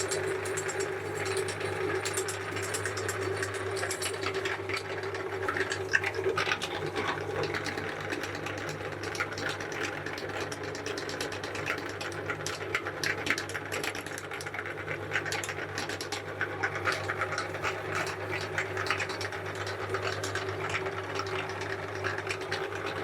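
Meat grinder running steadily with a constant motor hum, with frequent irregular crackles and clicks as a frozen wafer ice cream cone is ground through it.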